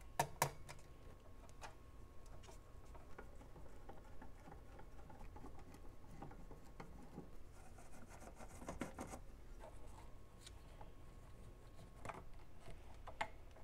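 Faint clicks and scraping of a screwdriver and hands working on a metal amplifier chassis while undoing screws to free the circuit board, with two sharper clicks near the start and a longer scraping stretch about two-thirds of the way through.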